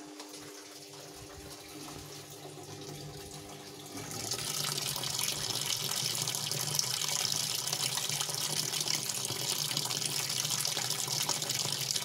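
Water from the inlet pouring into the empty tub of a Polytron Zeromatic top-loading washing machine as it fills. There is a steady low hum at first, and the splashing of water starts sharply about four seconds in and then runs on evenly.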